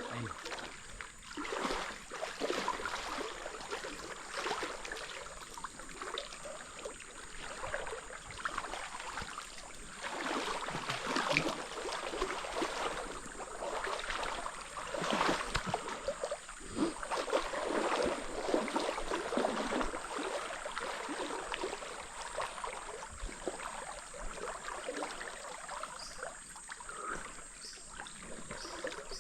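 River water running and splashing, with many small irregular splashes over a steady rush.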